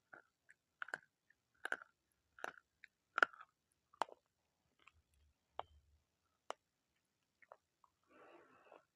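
Close-miked crunching as crisp food is chewed: sharp crunches about once every three-quarters of a second, thinning out after about six and a half seconds.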